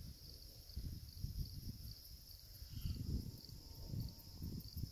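Faint steady chirring of crickets, under an uneven low rumble of wind on the microphone.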